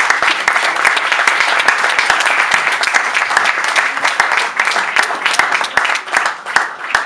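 Small theatre audience applauding: dense, steady hand-clapping.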